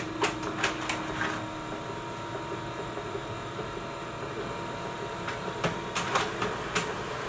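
HP Color LaserJet Pro M277dw colour laser printer starting up to print a supplies status report. It runs with a steady hum, and a steady tone in the first couple of seconds stops about two seconds in. Sharp mechanical clicks come through, several of them about five to seven seconds in.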